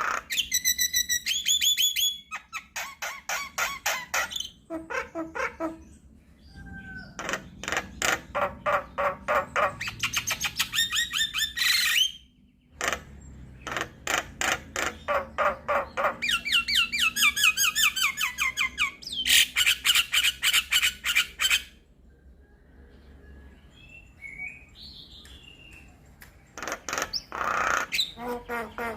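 Javan myna (jalak kebo) singing in long runs of rapid, repeated harsh chattering notes, mixed with whistled phrases that glide up and down. There is a quieter stretch with only faint whistles near the end.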